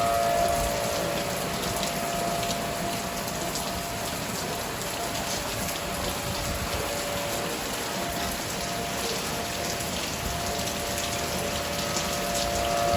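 Steady rain hiss with an outdoor tornado siren sounding a steady two-note tone. The siren fades away a second in, comes back about halfway through, and swells louder near the end, as a rotating siren does.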